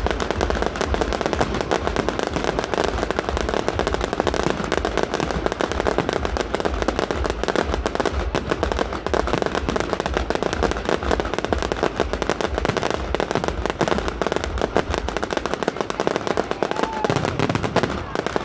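Fireworks display: a dense, continuous barrage of aerial shell bursts and crackling stars, with deep thuds several times a second. The deep thuds thin out near the end.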